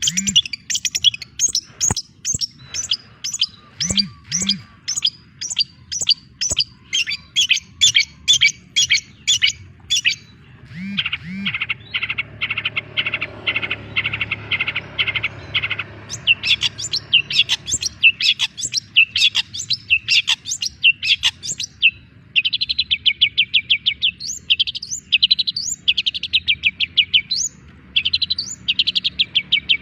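Young long-tailed shrike singing: long runs of sharp, rapidly repeated high notes, two or three a second, with a faster, denser chattering stretch partway through.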